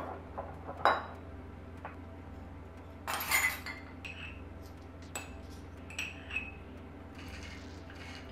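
Glass jars, a jar lid and a spoon clinking and tapping against a glass bowl as dry ingredients are opened and spooned out. The short clinks come every second or two, the loudest a little after three seconds in, over a low steady hum.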